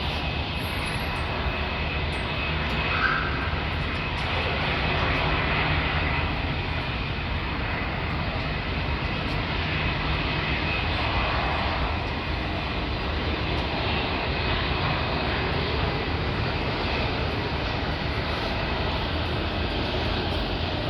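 Jet airliner's engines running: a steady rushing noise with a thin, steady high tone over it.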